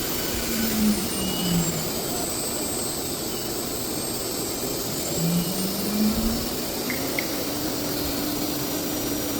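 1325 ATC CNC router running with a steady rushing machine noise. A high whine slowly falls and then rises again, and two short low gliding tones come from the machine's motors.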